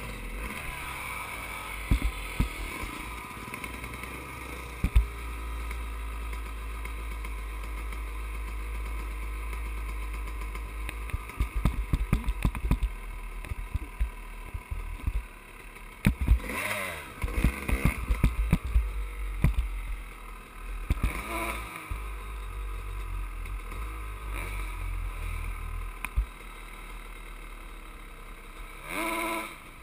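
Dirt bike engines running and revving in bursts, with scattered knocks and clatter, over a steady low rumble.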